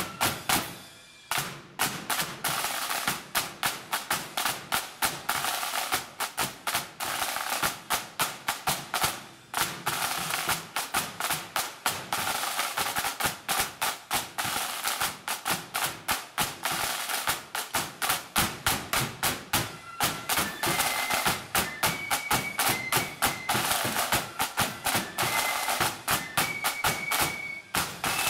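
Blood-and-thunder marching band's side drums beating a rapid rhythm with a bass drum, dropping out briefly about a second in. A high flute tune comes in over the drums after about twenty seconds.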